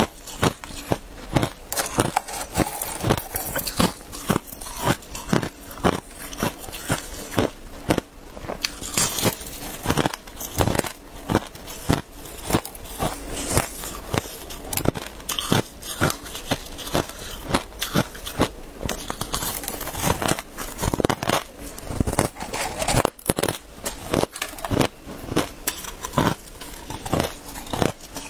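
Crushed ice being bitten and chewed: sharp, crackly crunches of ice breaking between the teeth, coming steadily, one or two a second.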